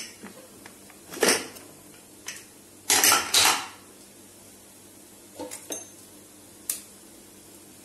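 Metal pressure cooker lid clanking and scraping as a stuck lid is worked free and lifted off. There are several sharp knocks, the loudest clatter about three seconds in, then a few lighter metal clinks.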